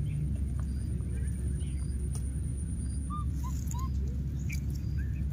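Outdoor ambience: a steady low rumble with a few faint, short chirping animal calls, three in quick succession a little past the middle.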